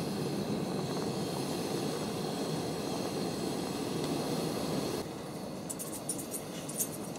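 Cartridge camping gas stove burning steadily under a saucepan of barbecue sauce at a rolling boil, being reduced: a steady rushing noise that drops a little about five seconds in, followed by a few faint ticks.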